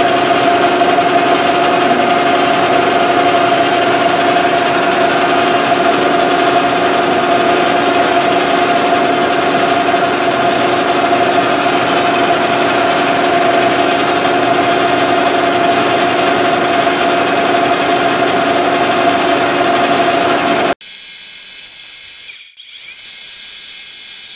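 Metal lathe running steadily through a roughing cut on a steel shaft, a carbide WNMG insert taking about 40 thousandths at 5 thousandths per rev, with a steady hum and a held mid-pitched tone. About three-quarters of the way through, the sound cuts off abruptly and a thinner, high-pitched hiss takes over.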